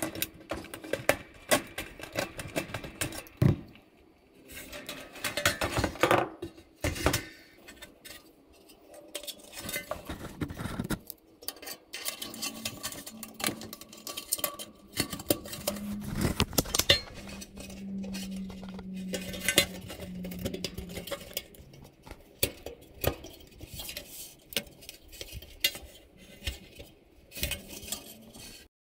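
Metal dryer parts and hand tools clinking and clattering as they are handled, in irregular knocks and clicks, with a steady low hum for a few seconds past the middle.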